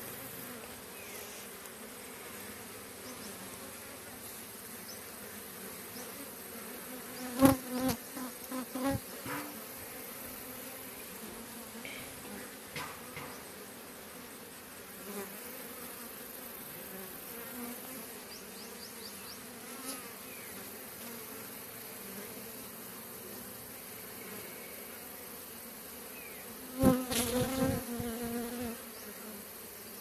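A honeybee swarm buzzing steadily as a continuous hum. Twice, about a quarter of the way in and again near the end, the buzzing swells louder for a second or two with sharp knocks.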